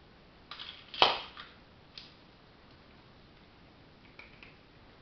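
Snack-Swing treat-dispensing toy clattering on a tiled floor as a cat bats at it: a few clicks, one sharp knock about a second in, and lighter clicks near the end.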